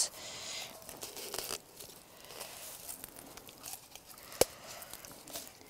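Stiff birch bark crackling and rustling as a strip is wound tightly around the layers of a birch bark trumpet, busiest in the first second and a half, with a single sharp click about four and a half seconds in.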